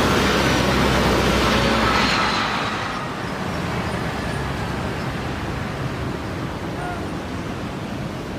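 Boeing 737-500's CFM56 jet engines passing close on its landing approach, a loud rushing noise with whining tones that fades away about two to three seconds in, leaving a steady background hum of distant traffic.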